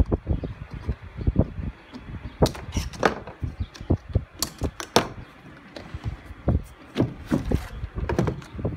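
Irregular knocks and clicks of a hard plastic kayak cooler being opened and handled.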